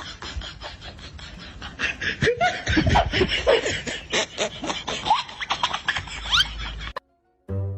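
People laughing hard in quick repeated bursts. It cuts off abruptly near the end, and music starts just after.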